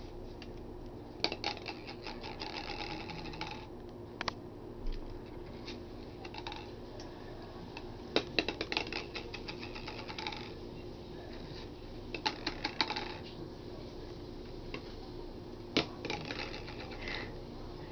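Plastic stacking-toy rings clattering and knocking in several bursts of rapid clicks as a toddler bangs and drops them, over a faint steady hum.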